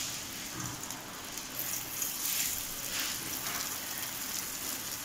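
Hot oil sizzling and crackling around cornflour-coated beef pieces frying in a pan. The sizzle swells a few times past the middle as more pieces are dropped in.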